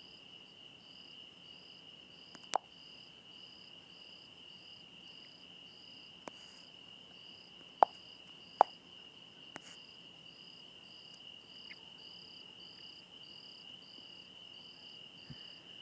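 Crickets chirping in the background: a steady high trill with a faster pulsing note above it, about two pulses a second. A few sharp clicks break through, the loudest two close together about eight seconds in.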